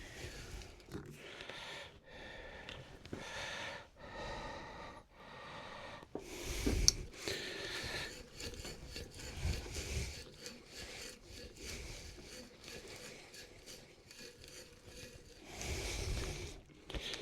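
Hand tool working wood in repeated rubbing, scraping strokes, with a sharp knock about seven seconds in.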